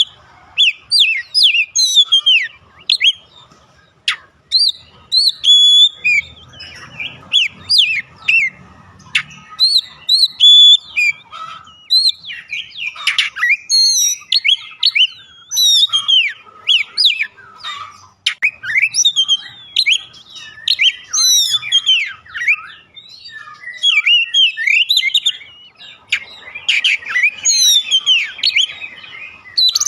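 Oriental magpie-robin (kacer) singing a long, varied, loud song of quick whistles, slurred rising and falling notes and chattering phrases, with only short pauses between phrases.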